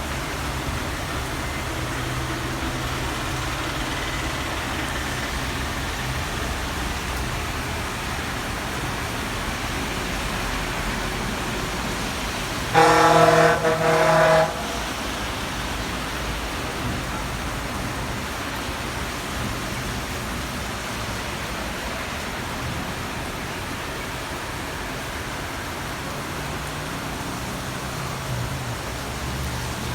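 Steady hiss of falling rain, with a vehicle horn honking twice in quick succession about halfway through.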